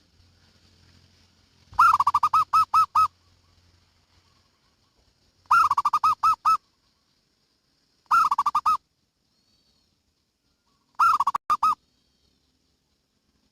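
Zebra dove (perkutut) cooing: four phrases a few seconds apart, each a quick run of pulsed coos lasting about a second.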